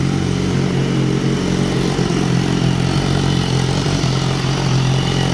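2014 BMW S1000RR's inline-four engine idling steadily, with an ugly-sounding noise from the exhaust. The owner traces this knock-like noise to the exhaust flap valve rather than the engine, and cured it by locking the valve.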